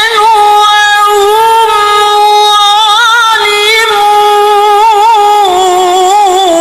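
A man reciting the Quran in melodic tilawah style, holding one long, high, ornamented note with wavering turns, which steps down slightly near the end.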